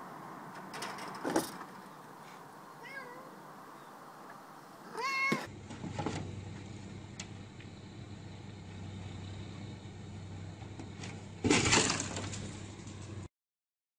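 A domestic cat meows once, about five seconds in; later comes a loud, brief clatter as a cat lands on a snow-covered car.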